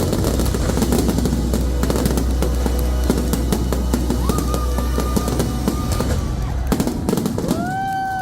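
Fireworks crackling and bursting over loud show music with a heavy bass. About seven seconds in, the music stops and whistling from the crowd begins.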